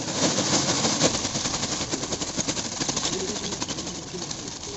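Lump charcoal pouring out of a plastic bag onto the ground, a dense clattering of many small knocks that eases off toward the end.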